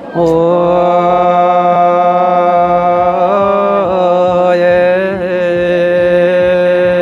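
Traditional wedding exchange singing: one voice chanting a long, drawn-out line, held mostly on one pitch, with a wavering bend about three to four seconds in.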